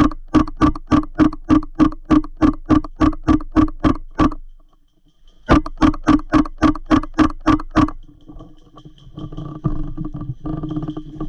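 Airsoft gun firing a rapid string of single shots, about three or four a second, stopping for about a second midway and then firing a second string. After the second string comes a fainter, continuous buzzing rattle.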